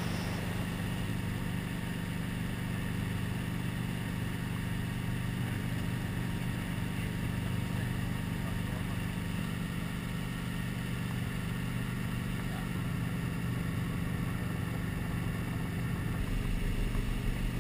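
Light helicopter's engine and rotor heard from inside the cabin: a steady low hum on descent toward the runway, growing a little louder with more low rumble near the end.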